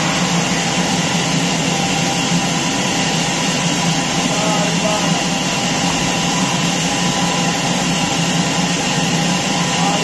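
Large horizontal log band saw running steadily between cuts, with its motor and band wheels giving a loud, unbroken mechanical hum.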